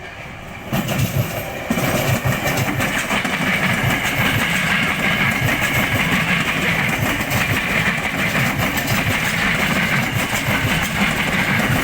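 KRL Commuter Line electric commuter train passing close by over the turnout, with wheels clattering rapidly over the switch and rail joints. It gets loud suddenly about a second in and stays loud.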